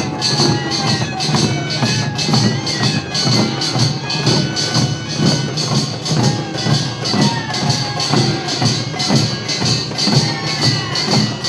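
Korean farmers' band music (pungmul): drums and gongs beating a steady rhythm, with a gliding melody line above.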